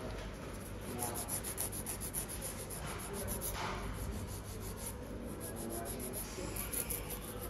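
Nail file rasping across fingernails in quick repeated strokes, several a second, as dip-powder nails are shaped.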